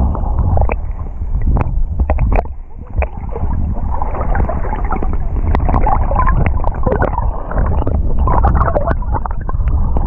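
Muffled water sound picked up by a camera held under the surface in shallow surf: water sloshing and churning with a heavy low rumble and scattered sharp clicks and crackles.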